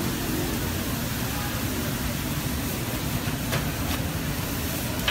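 Steady hiss and low rumble of kata kat gravy bubbling and steaming on a large hot iron tawa, with a single sharp click about three and a half seconds in.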